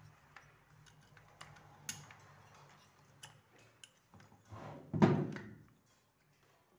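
Scattered small clicks and taps of hands handling plastic and rubber parts while fitting the carburettor pipe and gasket on a chainsaw. About five seconds in comes a louder, brief scraping rustle.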